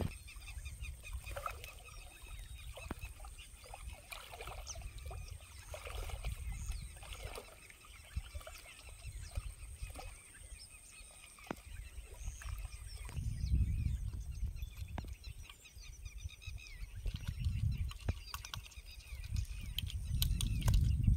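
A person wading through river water, the water sloshing around his legs in stretches that grow louder in the second half, while birds chirp and call throughout.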